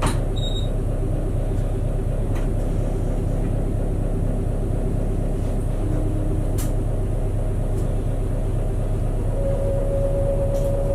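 City bus engine idling while the bus waits at a red light, heard from inside the cabin as a steady low rumble with a few faint clicks. A steady high tone comes in near the end.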